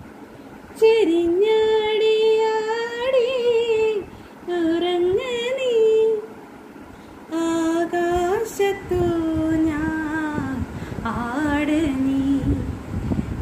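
A woman singing a Malayalam lullaby to put a baby to sleep, in slow phrases of long held, wavering notes with short pauses between them. Soft low thumps sound under the later phrases.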